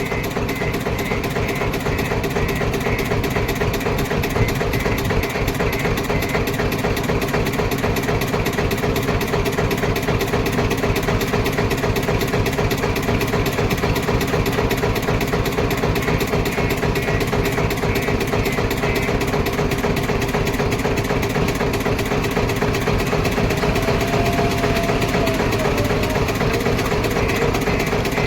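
JCB 3DX backhoe loader's diesel engine running steadily, with a brief faint whine near the end.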